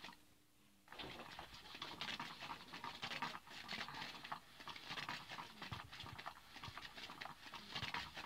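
Cat's Meow battery-powered cat toy: its hidden wand sweeping under the fabric cover, a dry, scratchy rustling that starts about a second in after a short pause and keeps going.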